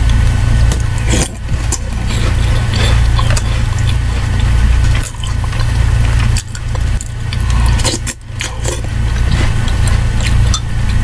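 Metal spoon clinking and scraping against a ceramic mug of soup, with close-up mouth sounds of chewing, over a steady low hum.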